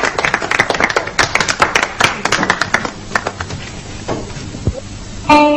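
Audience applauding, the clapping thinning out to scattered claps after about three seconds. Near the end a band comes in with a held chord.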